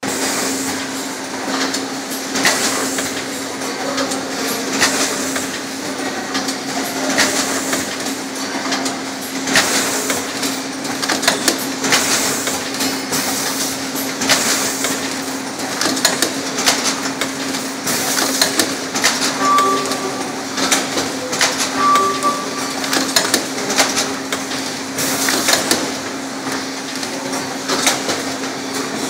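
Production-line machinery running, with a steady hum and frequent irregular clicks and knocks. Two short high beeps sound about two-thirds of the way through.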